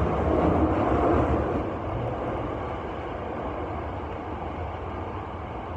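Running noise of a subway train in a tunnel, heard from inside the front car: a steady rumble of wheels on rails. It is loudest at first and gradually quietens from about two seconds in as the train slows for the next station.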